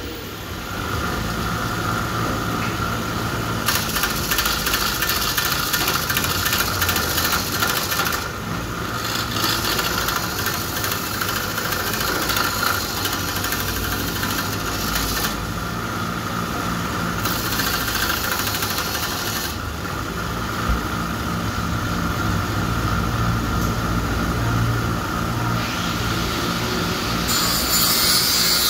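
Half-horsepower bench grinder's motor running the belt-sander attachment fitted to its side, with a steady hum, while a block of wood is sanded on the belt. The rasping sanding noise comes and goes in stretches of a few seconds as the wood is pressed on and lifted off.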